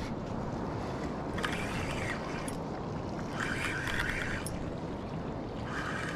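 Fishing reel being wound in to bring in a hooked fish, in three spells of about a second each, over steady wind and water noise.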